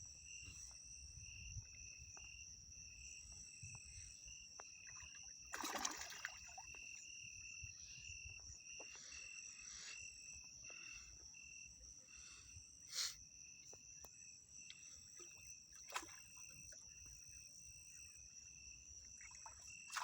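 Faint insects calling outdoors: a continuous high shrill with a regularly pulsing chirp beneath it, two or three pulses a second. A few short noises break in, the loudest about six seconds in.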